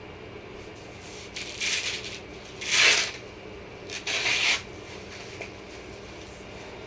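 Hook-and-loop strap of an ankle weight being ripped open as the weight is taken off: three rasping tears over about three seconds, the middle one loudest.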